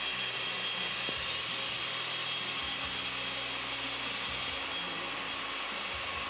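Electric countertop blender running steadily at a constant pitch, puréeing cooked green tomatoes into a smooth salsa.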